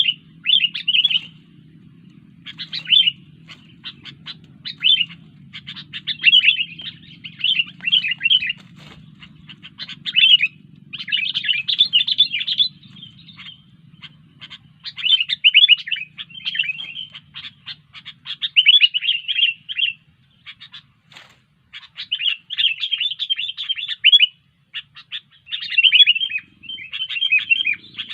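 Sooty-headed bulbul (kutilang) singing busily: fast runs of chattering chirps in repeated bursts with short pauses between them, over a faint low hum.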